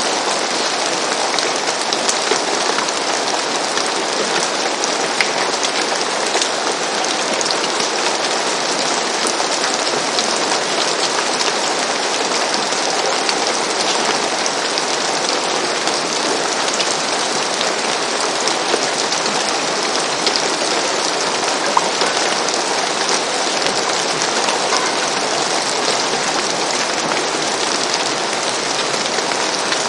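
Steady rain falling on a roof, an even hiss of rain with many small drop ticks.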